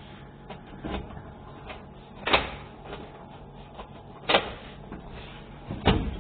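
Sparse, irregular knocks: four sharp strikes one to two seconds apart, the first faint and the loudest about two and four seconds in and near the end, each with a short ring after it, over a low steady hum.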